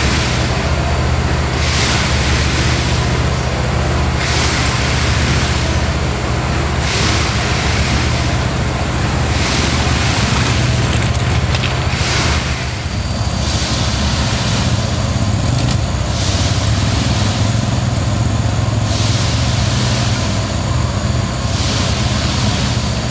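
Diesel engines of railway track maintenance machines, a ballast regulator and a tamper, running steadily. A hiss recurs about every two and a half seconds over the engine drone.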